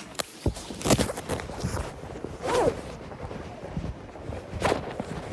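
Handling noise from a phone with its camera covered: irregular rustling and knocks with footsteps, and a short pitched sound about two and a half seconds in.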